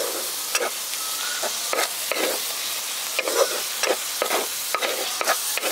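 Sondesh mixture of chhana, sugar and ghee being stirred in a hot pan on the stove: a utensil scrapes through it in repeated strokes, roughly twice a second, over a steady sizzle as it cooks dry.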